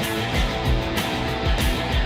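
Background music: rock-style track with guitar over a steady drum beat.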